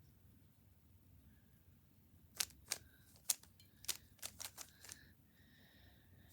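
Puzzle cube being turned by hand: a quick, irregular run of sharp plastic clicks starting about two seconds in, as the layers snap round.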